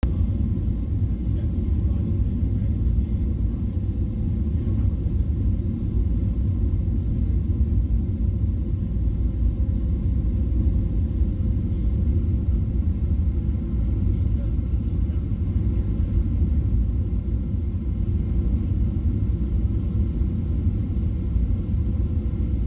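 Cabin noise of a Boeing 777-300ER airliner descending on final approach: a steady low rumble of airflow and engines heard inside the cabin, even throughout.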